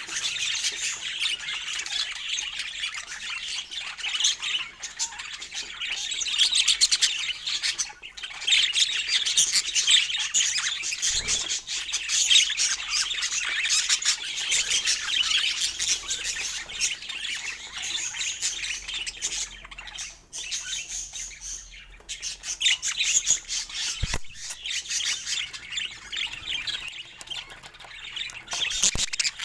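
Budgerigars chattering and squawking, a dense warbling chatter that runs on with a brief lull about two-thirds of the way in. A single sharp click sounds near the end.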